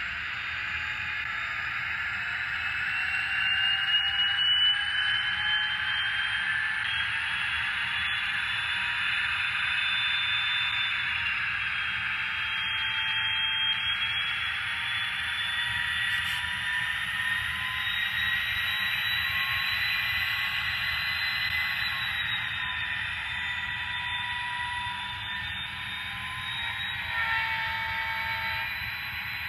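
Digital diesel sound of an EMD SD40-2 from a TCS WowSound decoder, playing through a small model-locomotive speaker as the HO model runs. There is a steady engine sound with a whine that climbs and falls slowly as the engine notches up and down through its throttle steps.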